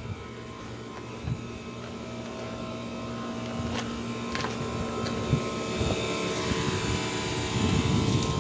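A machine's steady hum with a few constant tones, growing gradually louder, with a few light knocks.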